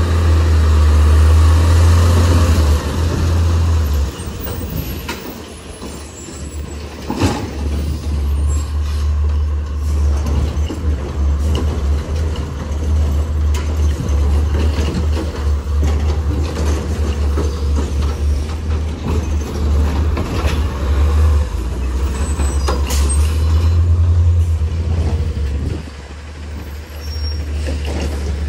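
Autocar ACX garbage truck with a Heil Rapid Rail side loader, its engine rumbling as it moves slowly and stops, with the hiss of its air brakes.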